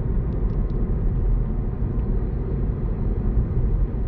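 Wind buffeting the phone's microphone: a steady low rumble that wavers in loudness.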